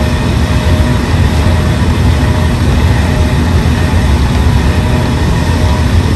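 Steady low mechanical rumble with a faint whine from a turning kiddie ride's drive machinery, holding even throughout.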